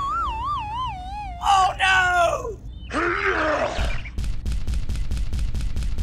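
Cartoon sound effects: a warbling whistle-like tone that wobbles as it falls, the kind used for a dizzy character, then a falling groan, a short noisy burst, and a quick run of about ten clicks near the end.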